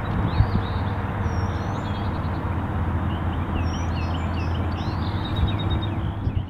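Songbirds singing, many short chirps and whistles overlapping, over a steady low rumble.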